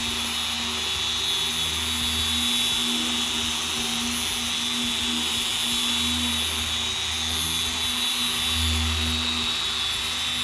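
Dual-action polisher with a foam pad running steadily at about speed 4 under medium pressure, buffing compound into car paint at the compounding stage of paint correction. A steady high whine over a low hum that comes and goes.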